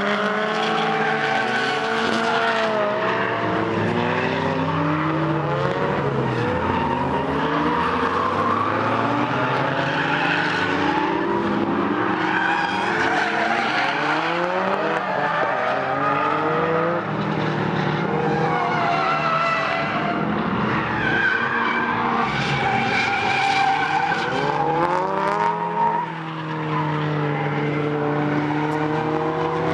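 Drift car engine revving hard, its pitch climbing and dropping again and again as it slides, with tyres squealing.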